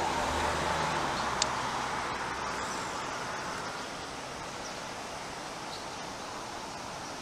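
Road traffic noise: a vehicle passing and fading away, leaving a steady hiss, with one sharp click about a second and a half in.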